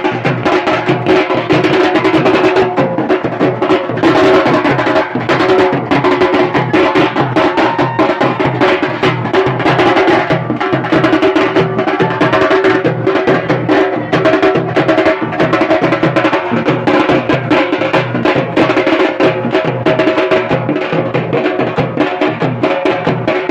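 Loud, fast drumming in an unbroken rhythm, with a held pitched tone running over the beats.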